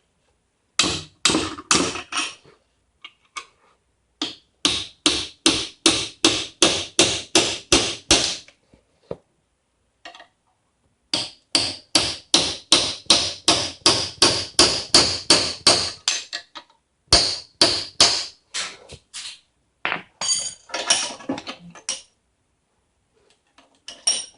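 Sledgehammer blows driving a chisel into a steel Master Lock padlock body, sharp metal-on-metal strikes to break the lock open. The blows come in quick runs of about three a second, separated by short pauses.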